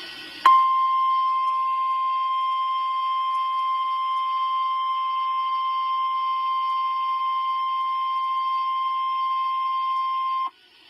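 NOAA Weather Radio 1050 Hz warning alarm tone: one steady, pure, high beep starting about half a second in, held for about ten seconds and cutting off suddenly near the end. It is the alert signal that comes before an emergency message, here a tornado watch.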